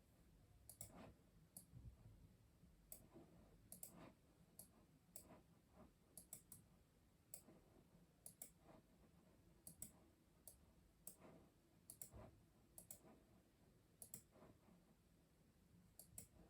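Custom mechanical keyboard being typed on slowly: faint, unevenly spaced keystroke clicks, about one or two a second.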